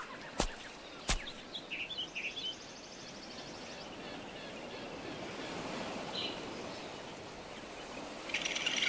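Forest ambience of a soundtrack: a soft steady hiss with a few short high bird chirps about two seconds in and once more near the middle. Two sharp clicks come in the first second, and a high buzzing sound swells near the end.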